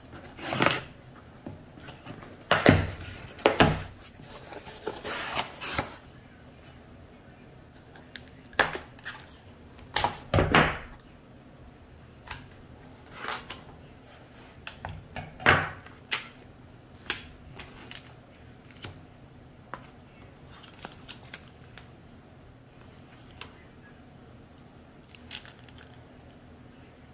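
Unboxing noises: a cardboard shipping box being opened, with tearing and rustling for a few seconds near the start. Then a plastic case is cut open and handled, and small parts are set down with scattered clicks and taps on a wooden table.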